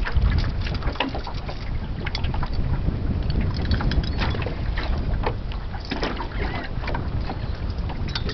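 Wind buffeting the microphone over a small boat on choppy water, with water slapping and knocking against the hull and gulls calling now and then overhead.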